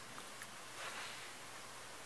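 Faint handling of small plastic toy parts over steady room hiss: a couple of light clicks and a soft rustle as a Playmobil jail-cell bar piece is worked in the hands.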